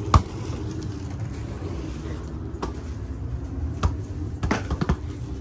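Handling noise on a phone's microphone: a sharp knock just after the start as a hand brushes the phone, then a few scattered fainter clicks over a steady low outdoor rumble.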